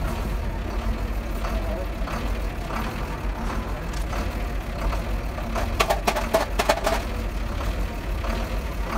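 A vehicle engine idling with a steady low rumble, and a brief rattle about six seconds in.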